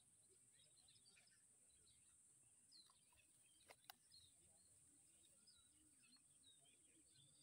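Very faint outdoor ambience of many small bird chirps, with two sharp clicks close together about four seconds in.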